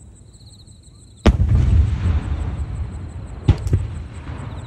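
Aerial firework shell bursting: a loud bang about a second in with a long rumbling echo, then two sharper bangs in quick succession about two seconds later.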